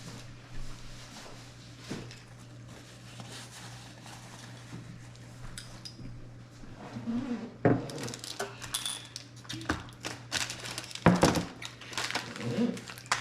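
Small clicks, taps and clatters of snack containers and utensils being handled on a table, busier in the second half, over a steady low hum.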